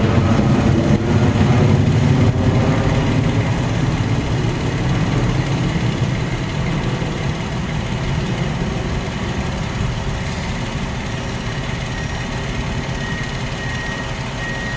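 Diesel engine of a truck-mounted crane running steadily under load as it lifts a yacht in slings, a little louder in the first few seconds and then settling.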